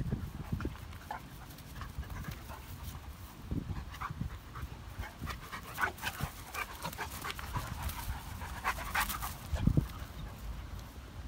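A Dogo Argentino and a beagle panting with open mouths as they play-wrestle, with short scuffling and rustling sounds and a couple of low thumps.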